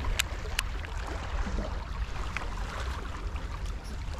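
Wind buffeting the microphone with sea water washing over shoreline rocks, a steady low rumble and hiss, broken by a few short sharp clicks near the start and once around the middle.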